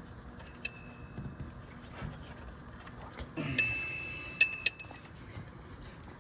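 Metal hand tools clinking against metal engine parts: a light clink, then a ringing clink and two sharp metallic taps in quick succession about four and a half seconds in, the last the loudest, each leaving a short bright ring.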